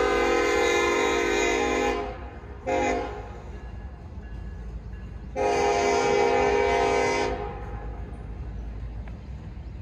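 Norfolk Southern freight locomotive horn sounding from the lead unit as it pulls away: a long blast ending about two seconds in, a short blast, then a final long blast, the close of the long-long-short-long grade-crossing signal. Under it, a steady low rumble of passing double-stack intermodal cars.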